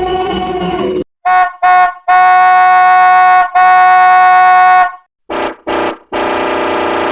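Edited variations of a Tesla Cybertruck horn. About a second in, after the end of a wavering version, comes two short honks and two long steady blasts on a clear high tone. After a brief gap the same short-short-long-long pattern sounds again in a lower, buzzier, distorted version.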